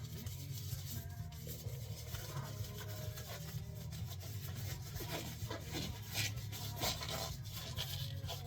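Rubbing and rustling of gloves being pulled onto hands, in irregular strokes that grow denser and louder in the second half.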